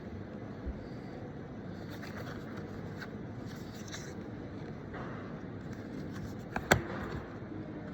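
Steady low background rumble with light rustling and scraping now and then, and one sharp click a little before the end.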